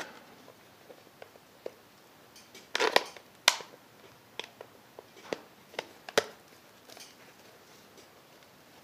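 Light, scattered clicks and taps of small plastic and rubber welding-helmet lens parts, a cover lens and its gasket, being handled and fitted by hand. There are about a dozen, with a louder click about three and a half seconds in and another just after six seconds.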